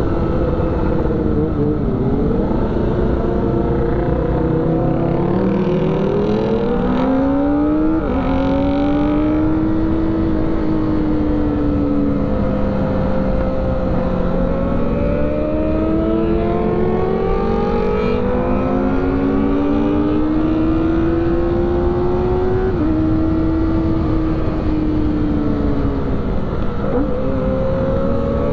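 Sport motorcycle engine under way, its pitch climbing in long pulls and dropping sharply at each gear change, several times, over a steady rush of wind.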